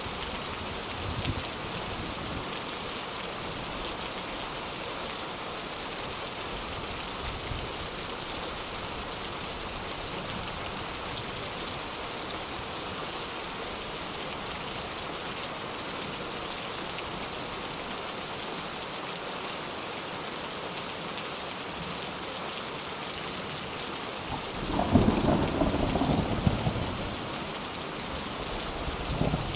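Steady heavy rain falling, with a loud low rumble of thunder near the end.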